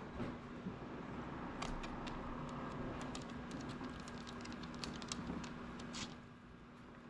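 Light, irregular clicking of dogs' claws on a hardwood floor while puppies scuffle on a blanket, over a steady low hum. The clicking stops about six seconds in.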